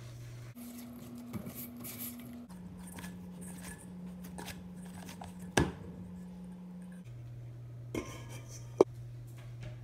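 Hands mixing and kneading dough in a stainless steel bowl, with scattered knocks against the bowl. A louder knock comes about halfway through. Near the end a steel plate is set over the bowl with a sharp ringing metallic clink, over a steady low hum.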